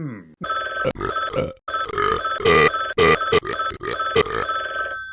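A bell rung over and over with irregular strikes, about three a second. Its high ringing tones sound throughout and fade out after the last strike.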